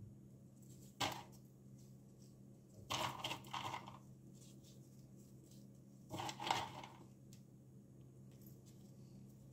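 Gloved hands handling walnut halves: a few short bursts of rustling and light clicks, about a second in, around three seconds in and again around six seconds in, over a low steady hum.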